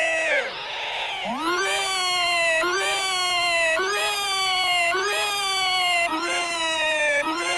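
An animated character's vocal roar, looped through audio effects into a string of pitched, cat-like cries. It repeats about once a second, each cry jumping up and then sliding down in pitch.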